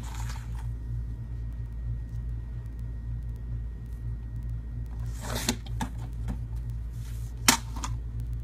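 Craft paper being handled and trimmed: a short scrape about five seconds in and a few sharp clicks, over a steady low hum.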